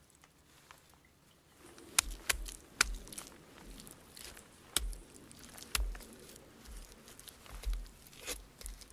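Rustling with a scatter of sharp snaps and knocks and dull thumps, beginning about two seconds in.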